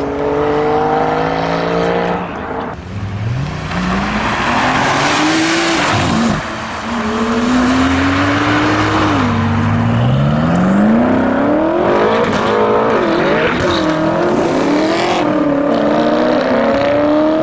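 Sports car engines accelerating hard away in turn: a Porsche Boxster, then a Porsche 911, then a BMW M3. Each engine's note climbs steadily in pitch and falls back at every gear change. Quick up-and-down revs come about two-thirds of the way in, and another rising pull follows near the end.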